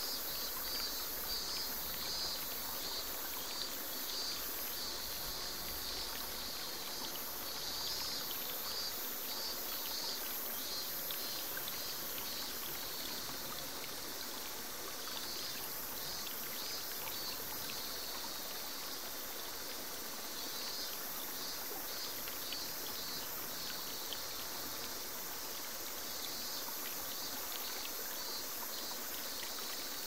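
Small forest waterfall spilling steadily into a pool, with cicadas calling over it in rapidly pulsing high trills that come and go.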